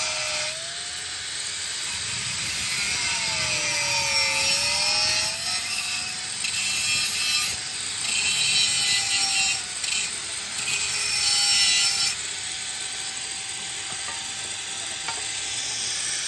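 Electric angle grinder with a cut-off disc cutting through sheet steel. The motor's steady whine sags in pitch under load about four seconds in and then recovers, while the hissing grind of the disc on the metal comes and goes in several stretches.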